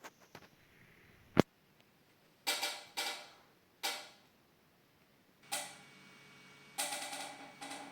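A sharp click, then three short scraping or clattering strokes, then a few longer bursts with a steady ringing tone in them, from hand work on small metal parts.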